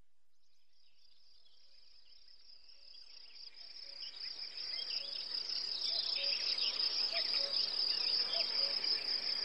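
Insects trilling steadily at a high pitch, fading in gradually over several seconds, with scattered short chirps over them.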